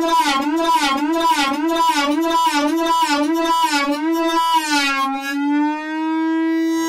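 AniMoog synthesizer app playing one held note, its pitch wobbling about twice a second with a pulsing brightness. About four and a half seconds in, the wobble stops and the note holds steady.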